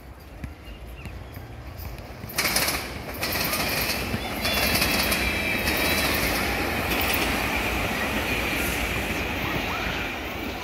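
SEPTA Regional Rail electric commuter train passing close by, a steady rushing of wheels on rail that swells about two seconds in and stays loud as the cars go past.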